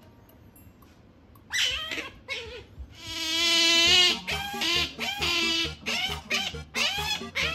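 Asian small-clawed otter squealing: a run of high-pitched calls starting about a second and a half in, with one long, loud squeal in the middle and shorter calls in quick succession after it.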